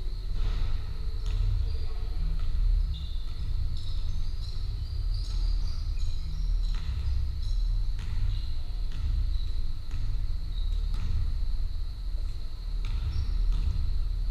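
Basketball bouncing on a wooden court, with scattered knocks and short high sneaker squeaks, over a steady low rumble and a faint steady high tone.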